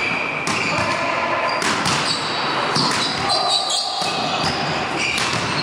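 Volleyball rally in a large, echoing sports hall: the ball is struck several times, each hit a sharp smack, with players' voices in between.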